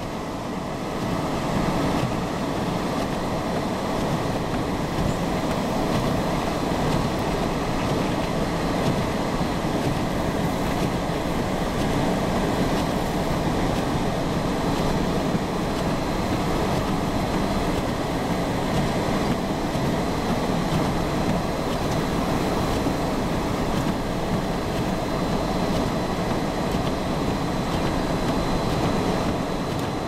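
Blizzard wind blowing hard, a steady, even rushing noise with no gusting breaks.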